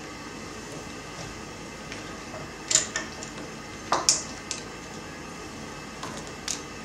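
Small plastic toy figurines and accessories being handled and set down, giving a handful of light clicks and taps over a steady hiss.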